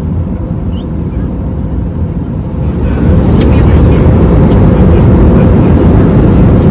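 Jet airliner cabin noise in cruise, a loud steady rumble of engines and airflow with no clear pitch, heard on a phone microphone; it jumps louder about three seconds in.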